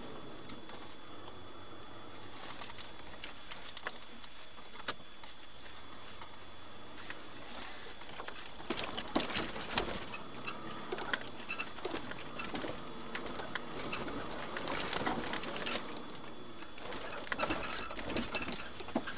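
Road and cabin noise picked up by a dashboard camera in a moving vehicle: a steady hiss with irregular clicks and knocks, which grow busier about halfway through.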